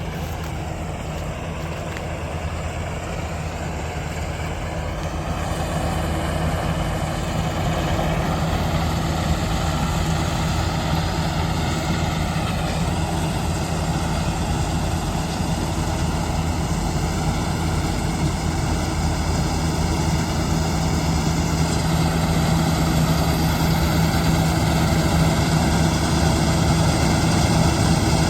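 Kartar combine harvester running steadily under load, a deep engine hum with mechanical clatter, growing gradually louder.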